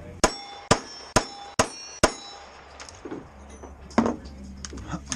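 A 9mm Glock pistol fired five times in quick succession, about two shots a second, each shot followed by the ring of a steel target plate being hit. A fainter crack follows about four seconds in.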